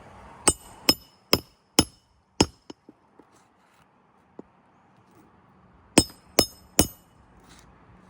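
Hammer striking metal with a bright ring: five quick blows about two a second, a pause with a few light taps, then three more blows near the end.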